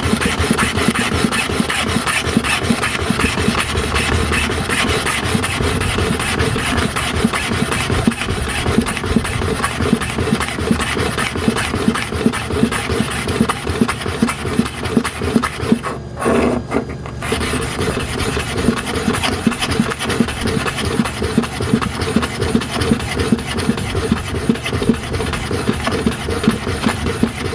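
A metal hair clipper blade rubbed rapidly back and forth on a sharpening stone wet with abrasive powder and oil, a steady, fast gritty rasp. The strokes stop briefly about two-thirds of the way through, then carry on.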